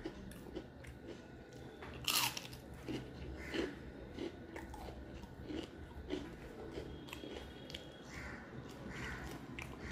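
Biting into and chewing a crispy pumpkin-flower fritter (kumro phuler bora, fried in a rice-paste batter): one loud crunchy bite about two seconds in, then a run of smaller chewing crunches.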